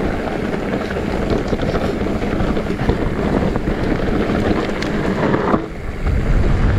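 Wind buffeting the microphone over the rumble and rattle of an electric mountain bike riding down a rough trail. The rumble briefly drops about five and a half seconds in, then comes back heavier.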